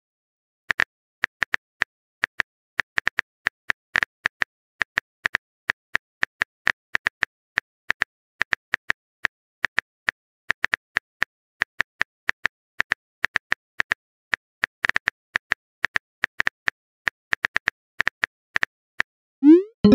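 Phone keyboard typing sound effect: a long run of short, irregular key clicks, about four a second. Near the end the typing stops and a short rising pop, a message-sent sound, begins.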